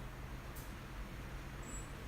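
Quiet room tone: a low steady hum under a faint even hiss, with no distinct event.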